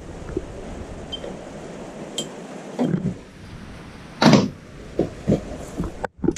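Socket ratchet and spanners clinking and knocking against the steel roller bracket of a lawnmower while its bolts are undone, with one louder knock about four seconds in.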